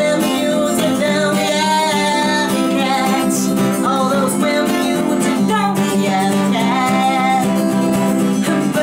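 Woman singing a folk song while strumming an acoustic guitar.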